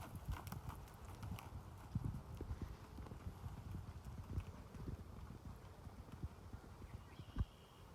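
Quarter horse hoofbeats: a run of irregular, muffled hoof thuds as horses move about, with one sharper thud about seven and a half seconds in.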